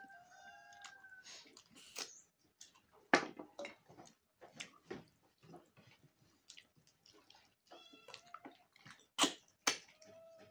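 An animal's short pitched calls, three times: at the start, around eight seconds in, and again near the end. Between them come scattered clicks and smacks of eating.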